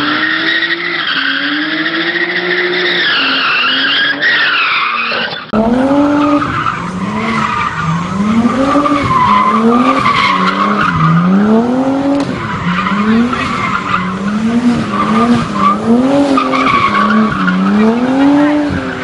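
Cars drifting: engine revs swing up and down over and over, about once a second in the second half, over continuous tyre squeal.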